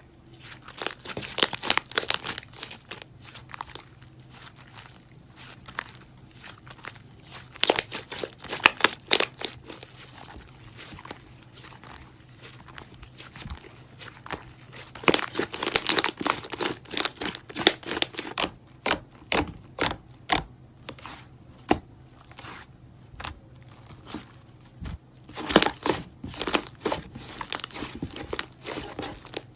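Slime being worked and squished, making clusters of crackling pops and clicks with short quieter pauses between them.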